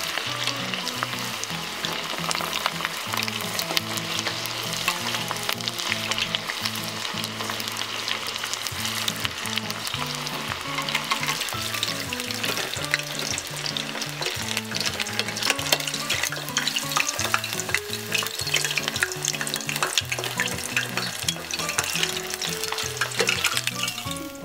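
Battered chicken pieces deep-frying in hot oil: a steady crackle and sizzle full of fine pops. Quiet bossa nova background music plays underneath.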